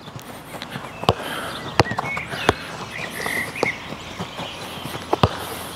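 A football being kicked back and forth on artificial turf, mixed with quick light footsteps through the cones: several sharp knocks, the loudest about two seconds in and near the end.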